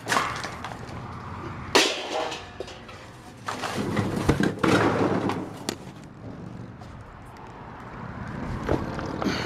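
Rummaging in a metal dumpster: trash and cardboard rustling and shifting, with scattered knocks and scrapes against the metal.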